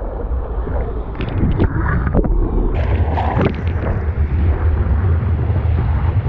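Wind buffeting the microphone over rushing ocean water, a steady low rumble with a few short sharp sounds about a second to three seconds in.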